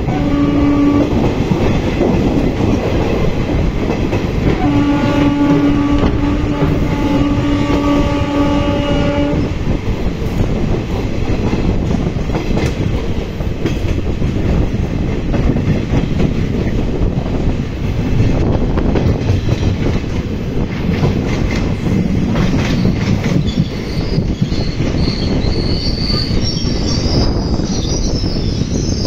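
Passenger train running, heard from inside a carriage: steady rumble and clatter of wheels on the rails. Its horn sounds briefly at the start, then in one long blast of about five seconds. Near the end a high squeal sets in as the brakes bring it into a station.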